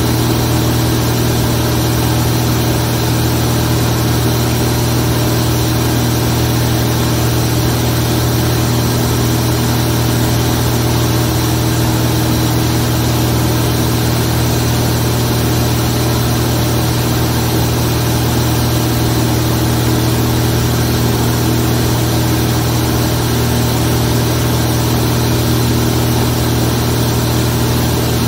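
Zlín Z 42 light aircraft's piston engine and propeller running at a steady cruise setting: a constant, loud drone that holds one pitch throughout.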